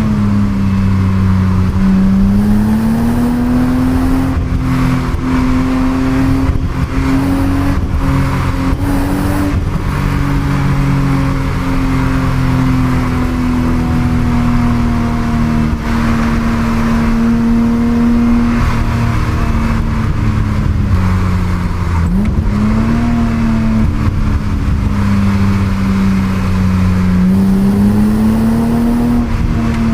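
Stock 1988 BMW 325i E30's 2.5-litre straight-six running under way through an unmodified exhaust, its note rising and falling gradually with the revs. About three-quarters of the way in, the revs dip briefly and climb again.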